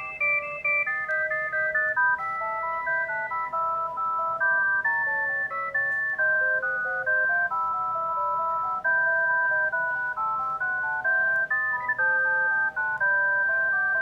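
Panasonic GD75 mobile phone playing one of its built-in polyphonic ringtones: an electronic melody of clear held notes in several voices at once, moving in steps.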